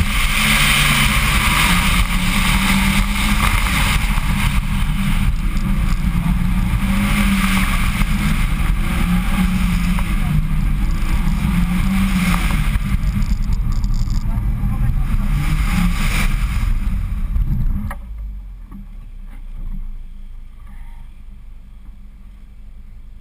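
Mitsubishi Lancer Evo X's turbocharged 2.0-litre four-cylinder driven hard, revs rising and falling again and again through a tight cone course. About eighteen seconds in it drops away to a low idle as the car stops.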